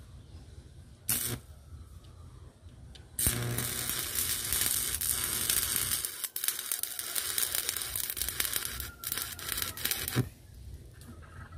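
Electric arc welder crackling while welding steel parts: a brief strike of about a quarter second about a second in, then a continuous crackling weld run of about seven seconds that stops near the end.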